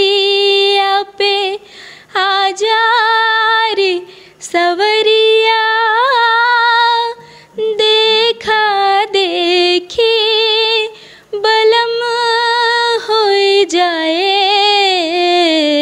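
A young woman singing a Hindi song unaccompanied, in long held phrases with wavering ornaments on the notes and short pauses for breath between them.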